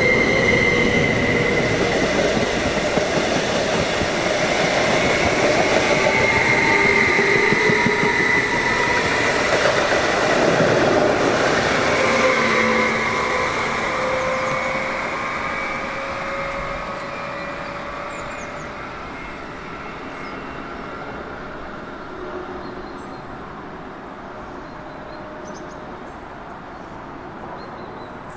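Stadler FLIRT electric multiple unit pulling away, its traction motors whining in several tones that glide upward over wheel-on-rail noise. The sound is loudest in the first dozen seconds, then fades steadily as the train draws off into the distance.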